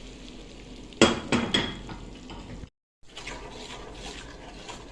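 Spoon stirring and scraping dry wheat flour as it roasts in a pan, with a quick cluster of sharp clinks against the pan about a second in. The sound cuts out briefly just past the middle, then faint scraping resumes.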